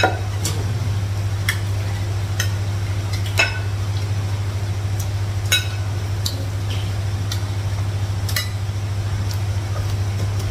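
Spoons and plates clinking now and then as people serve and eat from dishes, over a steady low hum.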